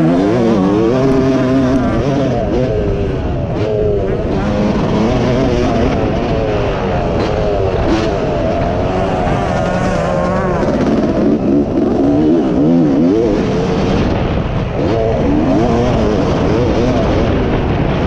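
Dirt bike engine heard from on the bike, revving up and down continuously as it is ridden hard around a motocross track, the pitch rising and dropping with throttle and gear changes.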